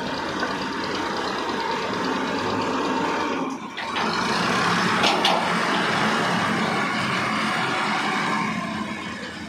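Machinery running steadily, an engine-like drone, dipping briefly about three and a half seconds in and running louder after, with a short sharp sound about five seconds in.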